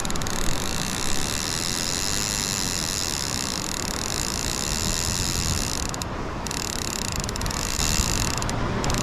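Overhead fishing reel paying out line as the drone flies the bait away, its spool spinning with the ratchet clicker buzzing steadily; the buzz stops briefly about six seconds in and again near the end. Wind noise runs underneath.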